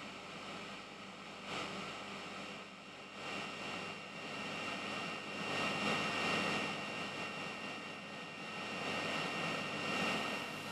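A car driving slowly through an underground car park, its engine and tyres echoing off the concrete, louder as it passes about halfway through, over a steady hum.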